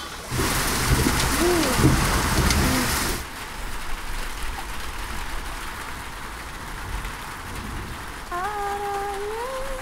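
Heavy rain pouring, loud for about three seconds, then dropping to a softer steady rain hiss. Near the end a single held melody note begins and slides upward.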